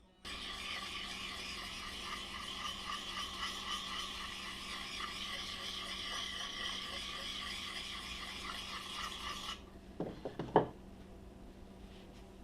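Hatchet's steel edge being honed on a sharpening stone: a steady scraping rub that cuts off suddenly a little over nine seconds in. A few knocks follow, the last the loudest.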